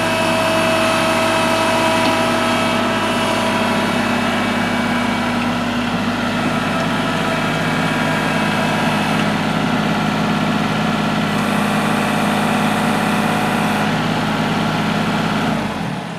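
Kubota L3301 HST compact tractor's three-cylinder diesel engine running steadily, with a steady low hum and a faint whine above it. The sound drops away near the end.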